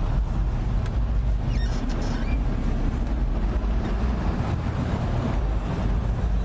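Steady low rumble of road traffic outdoors, with a brief faint squeal about two seconds in.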